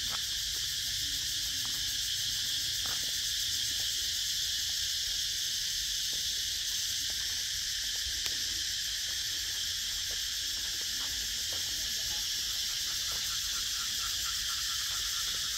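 Cicadas in the tall trees, a steady high-pitched chorus that keeps up without a break.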